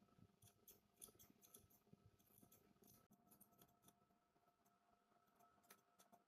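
Faint, quick snips of hair-cutting scissors cutting into a held section of long hair, several a second for the first three seconds, then only a few scattered snips.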